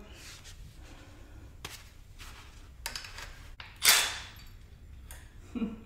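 Metal clicks from a wrench loosening the 10 mm cable nut on a bicycle caliper brake, releasing the brake wire's tension. About four seconds in there is one loud, sharp snap.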